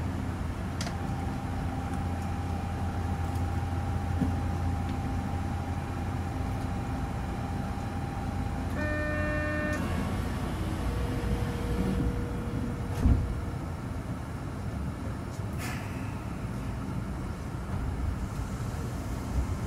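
Rubber-tyred automated guideway train running along an elevated track, heard inside the car: a steady low rumble with a held whining tone. About halfway through comes a brief chord-like toot lasting about a second, and about two-thirds through a single thump.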